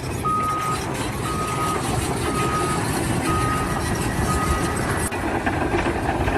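Vehicle reversing alarm beeping about once a second, five single-tone beeps that stop about four and a half seconds in, over a steady rumble of engine and site noise.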